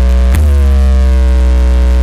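Loud sound-system playback of a sustained deep electronic bass drone with buzzing overtones. About a third of a second in, a sharp hit sets off a tone that slides down in pitch.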